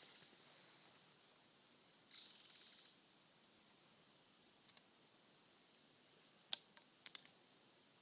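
A steady, faint, high-pitched insect trill, like crickets chirring, holds throughout. A few sharp clicks or snaps come about five and a half to seven seconds in; the loudest, about six and a half seconds in, is the loudest sound of all.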